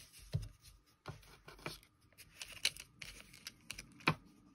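Small items and packaging being handled on a table: irregular light rustling and small clicks, with one sharper click about four seconds in.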